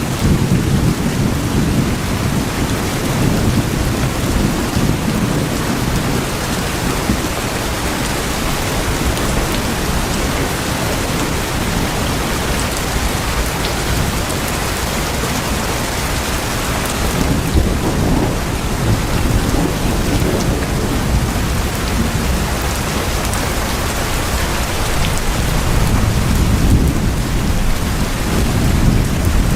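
Steady, heavy rain drumming on tin houses, a dense even patter. A low rumble swells at the start and again near the end.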